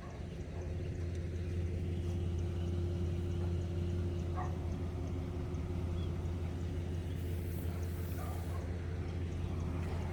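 A steady low mechanical hum that swells slightly in the first second and then holds, with a brief high hiss near the end.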